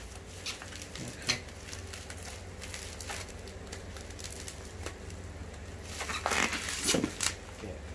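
Bubble wrap crinkling and crackling as a wrapped laptop box is handled and cut open with a small blade, with scattered crackles and a louder burst of crinkling about six to seven seconds in.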